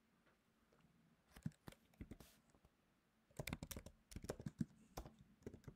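Typing on a computer keyboard: a few separate keystrokes, then a quick run of key clicks from about halfway through.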